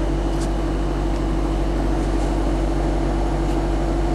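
Steady background hum: a constant low drone with a steady tone and hiss, unchanging throughout.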